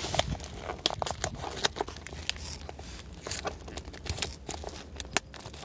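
Clear plastic deli container and plastic bag being handled, crinkling and crackling in irregular sharp clicks.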